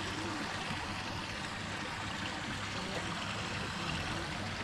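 Water trickling and rippling steadily at the surface of a rock-edged swimming hole, heard close up with the microphone right at the water line.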